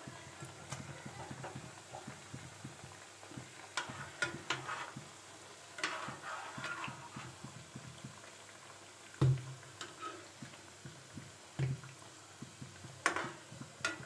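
Shakarpare dough pieces deep-frying in hot oil in a metal kadhai, a low bubbling crackle throughout. A metal slotted spoon stirs them, giving several knocks and scrapes against the pan, the heaviest about nine and twelve seconds in.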